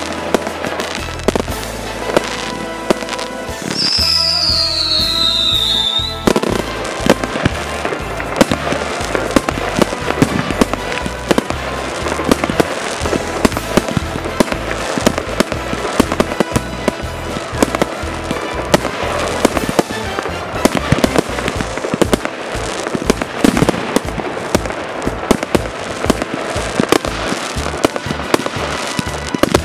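Fireworks salute: a dense, irregular run of bangs and crackling bursts. About four seconds in, a high whistle falls in pitch for about two seconds.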